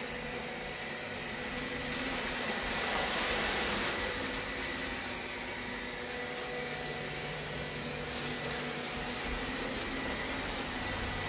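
Roborock S5 robot vacuum running in spot-clean mode: a steady motor and suction hum with a thin high whine. It grows louder and hissier for a couple of seconds near the start as it sucks up a pile of granola.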